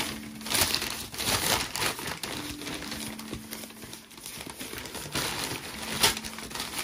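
Thin white paper wrapping crinkling and rustling as it is pulled open by hand, in irregular bursts with a sharp crackle about six seconds in.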